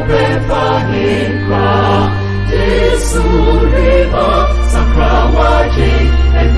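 Choir singing gospel music over a band backing, with deep sustained bass notes that change every second or two.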